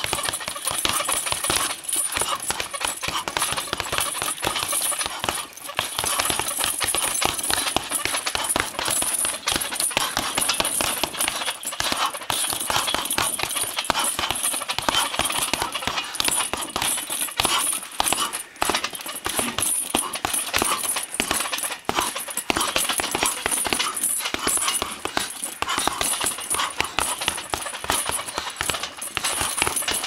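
Gloved punches landing on hanging heavy bags, a dense run of uneven knocks from two people punching at once.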